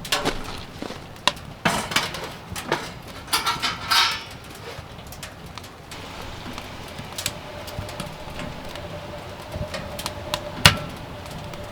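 Objects being handled: irregular knocks and clicks, a bright clinking rattle about three to four seconds in, and one sharp knock near the end, with a faint steady hum in the second half.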